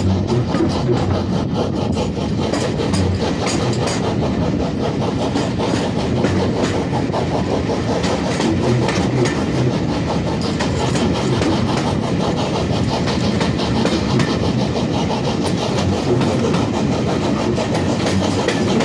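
A passenger carriage in motion, heard close to its open window: a steady rumble of steel wheels on the rails with a run of repeated clicks over the rail joints.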